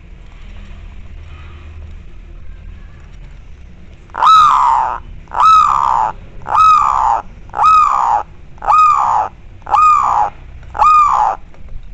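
Zebra dove (perkutut) giving its loud 'koar' call: seven drawn-out notes, each rising then falling in pitch, about one a second, starting about four seconds in. The koar is the call keepers use to stir other doves into calling.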